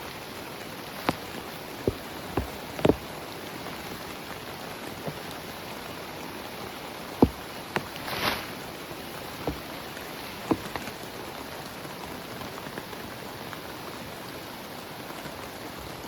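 Steady heavy rain falling, with scattered large drops tapping sharply and irregularly close by, about a dozen in all, and a brief louder hiss about eight seconds in.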